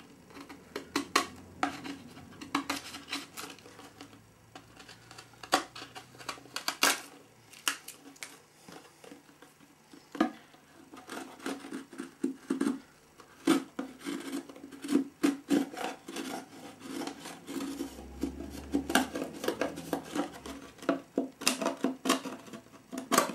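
Sharp chisel trimming cured epoxy flashing off the edges of a freshly moulded glassfibre glider fuselage: irregular sharp clicks, chips and short scrapes, some of them brief bursts of rapid clicking.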